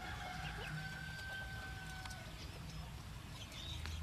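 Caged quails chirping and clucking in short, high calls, with one long steady held note during the first two seconds.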